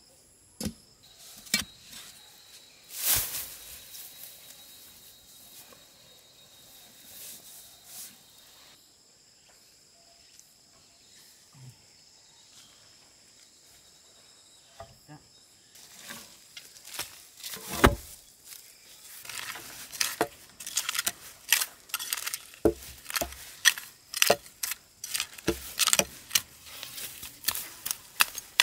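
A hoe blade striking and scraping packed earth in quick repeated chops, thickest in the last third, with one heavy thump a little past halfway. Steady high insect buzzing carries the first half.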